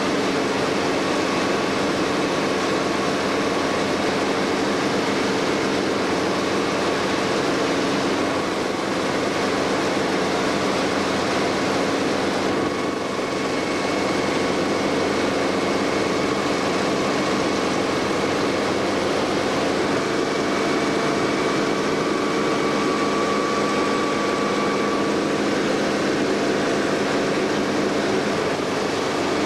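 Helicopter engine and rotor running steadily in flight, heard from inside the cabin as a constant dense noise with a few steady hums through it.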